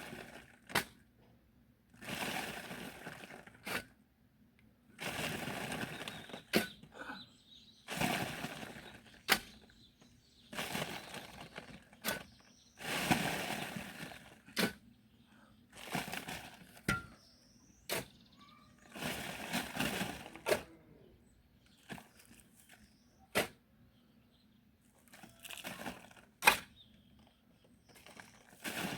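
Hand digging in loose murram soil: a digging tool scrapes into the soil about every three seconds, each stroke followed by a sharp knock.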